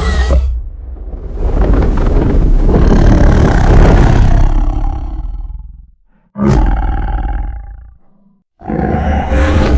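Mutadon creature sound effect: a long, deep roar that swells and then fades out over about five seconds, followed by a shorter roar, with a third starting near the end.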